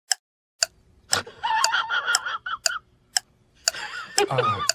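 Pendulum wall clock shaped like a cat, with a swinging tail, ticking about twice a second in sharp, even clicks. A wavering, higher-pitched sound comes and goes between the ticks.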